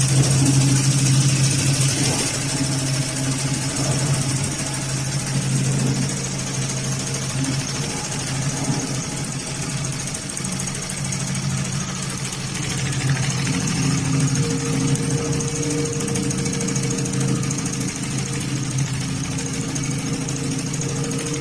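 Heavy-duty automatic pattern sewing machine running steadily at speed, stitching lifting webbing loops onto thick woven polypropylene bag fabric.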